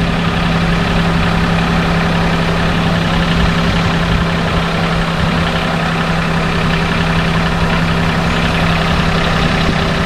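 Daihatsu Hijet Cargo engine idling with its electric radiator fan running, a steady hum with a whir over it. The fan motor is failing: it sticks and only starts when knocked.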